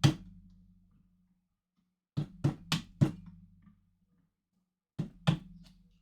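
Sharp knocks, like blows struck on a solid object, in three groups: two at the start, four quick ones about two seconds in and two near the end. Each leaves a brief low ringing tail.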